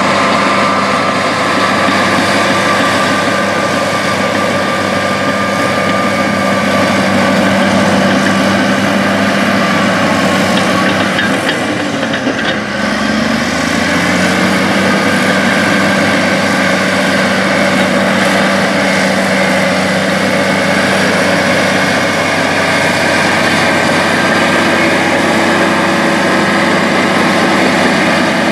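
Caterpillar crawler dozer's diesel engine running steadily as the dozer tracks over and packs chopped corn silage, with a brief dip in the sound about halfway through.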